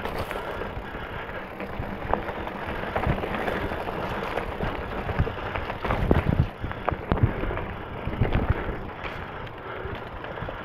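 Specialized Stumpjumper mountain bike being ridden over a dirt trail: steady tyre and riding noise with frequent clicks and knocks as the bike rattles over bumps, loudest about six to seven seconds in.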